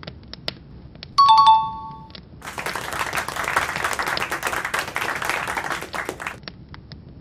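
End-screen subscribe-button sound effects. About a second in, a bell-like two-note notification chime rings for under a second. From about two and a half seconds in, a few seconds of crackling noise full of small clicks follows, then fades back to scattered clicks.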